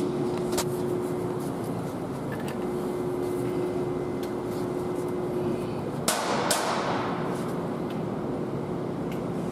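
Steady workshop background noise with a steady hum, broken about six seconds in by two sharp knocks half a second apart.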